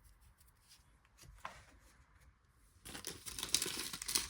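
Faint handling clicks, then about three seconds in the crinkling and tearing of a trading-card pack wrapper being opened.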